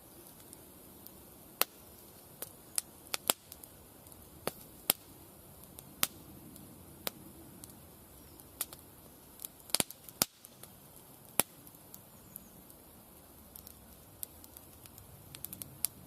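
Small wood fire in a home-made tin-can rocket stove crackling, with irregular sharp pops about one or two a second.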